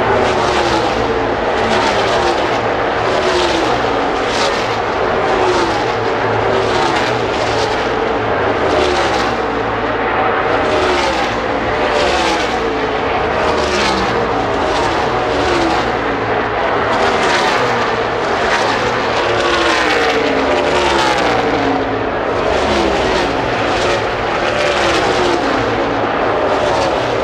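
NASCAR Cup Series stock cars' V8 engines racing past one after another at full speed, about one a second. Each engine note falls in pitch as the car goes by, over the continuous drone of the pack.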